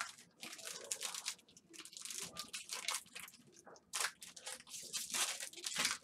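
Foil trading-card pack wrappers crinkling and rustling in the hands, a quick irregular run of crackles.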